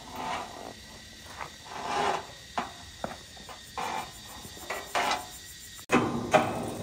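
A hand tool scraping against wood in irregular strokes, with a few sharp knocks. It breaks off abruptly near the end into a louder, busier sound.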